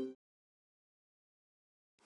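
The tail of violin background music dies away just after the start, followed by dead silence.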